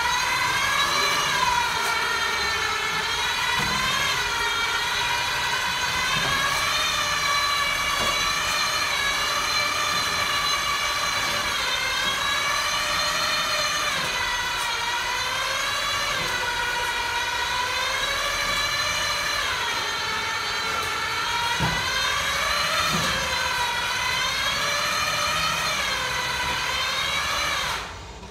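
Electric drive motor of a Zonzini Domino stair climber whining as it climbs a staircase under a 160 kg load, its pitch sagging and rising in a repeating cycle every two seconds or so, then stopping near the end.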